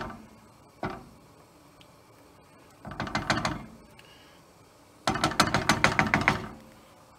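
Wooden spoon scraping and tapping pesto out of a small ceramic bowl into a frying pan. There is one knock, then two bursts of quick clattering scrapes, the second one longer.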